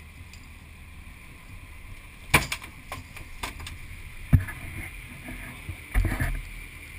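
Heavy thuds and knocks on a boat's wooden deck as a gaffed wahoo lands and thrashes. There are three main impacts: one a little over two seconds in, one about four seconds in, and a short flurry about six seconds in. They sit over the boat's steady background noise.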